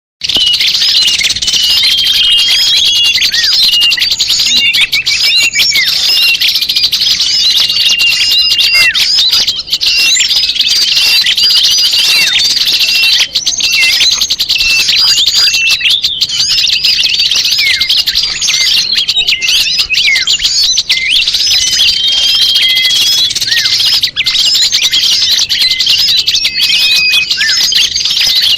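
A dense, noisy chorus of many small songbirds chirping and twittering over one another, with some longer whistled notes. It starts abruptly and runs without a break. This is a bird-trapping lure recording ('suara pikat') of agitated small birds, meant to draw wild birds in.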